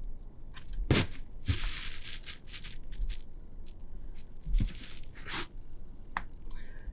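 Climbing shoes and hands scuffing and scraping on sandstone holds as a climber moves under an overhanging roof: a run of short, irregular scrapes, with a sharp knock about a second in.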